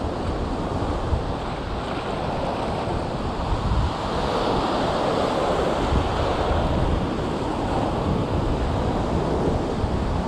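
Ocean surf breaking and washing through the shallows, a steady rush of water, with wind rumbling on the microphone.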